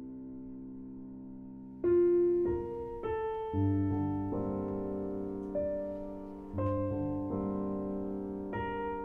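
Slow solo piano music: a held chord dies away, then single notes and chords are struck about once a second, each left to ring and fade.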